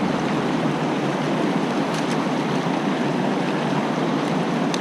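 Fast-flowing creek water rushing steadily over rocks, with a couple of faint small ticks about two seconds in.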